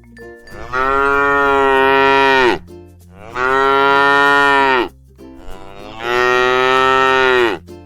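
Cow mooing three times in long, drawn-out calls, each dropping in pitch as it ends.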